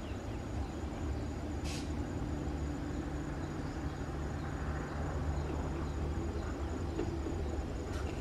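Diesel engine of a GE AC44i locomotive running steadily with a low rumble as the light engine creeps closer. A brief hiss sounds about two seconds in.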